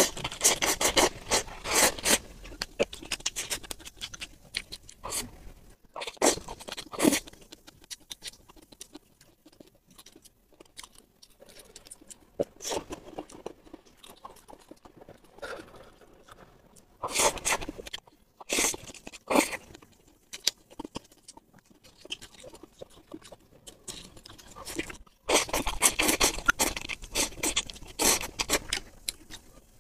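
Close-up eating sounds: bursts of wet slurping as noodles are sucked in at the start, twice in the middle and again near the end, with quieter chewing between.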